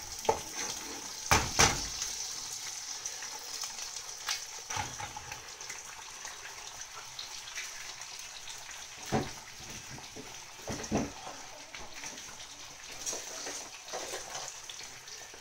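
Eggs and chicken salami slices sizzling in a frying pan, a steady hiss with a few sharp taps, the loudest two about a second and a half in as a second egg is cracked into the pan.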